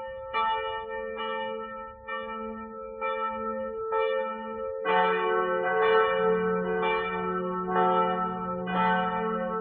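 Church bells ringing, struck roughly once a second with each stroke ringing on, and a deeper bell joining in about five seconds in.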